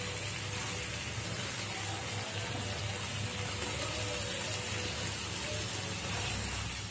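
Chicken skewers sizzling in hot oil in a frying pan, a steady hiss as they are turned over.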